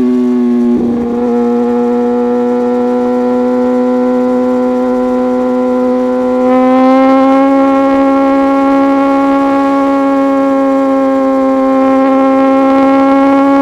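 Suzuki GSX-R1000R inline-four engine through an un-tuned M4 full exhaust system, held at steady high revs, its note rising a little about halfway through.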